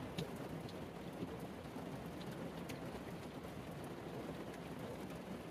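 Heavy rain falling on a minivan's roof and windows, heard from inside the van: a steady patter with scattered sharper drop ticks.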